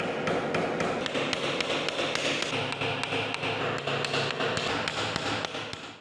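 Hammer tapping rapidly and steadily on a wooden block set against a rusted kukri's tang in a vise, trying to knock off an old wooden handle that is stuck fast.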